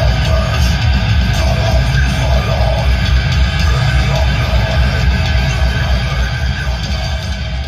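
Loud heavy metal music with distorted guitars, dense and steady, beginning to fade out near the end.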